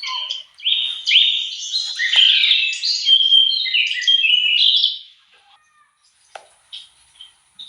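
Birds singing: a dense run of quick, high chirps and trills for about five seconds, then only a few scattered faint chirps, with a faint steady high-pitched tone coming in near the end.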